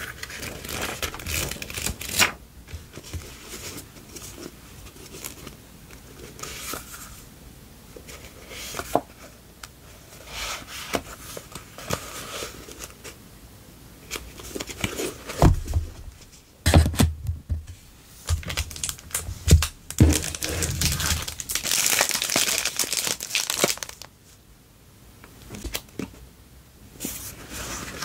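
Clear plastic cellophane packets crinkling and stacks of small paper cards and memo sheets rustling and flicking as they are handled and leafed through, with a few soft thumps past the middle and a longer burst of crinkling a little later.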